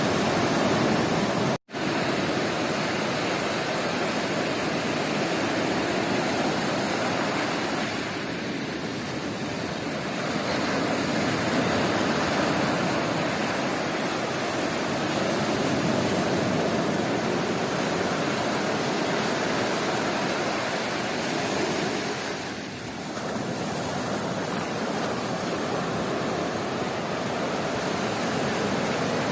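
Sea surf washing onto a beach: a steady rush of breaking waves that swells and eases slowly. The sound cuts out for an instant about a second and a half in.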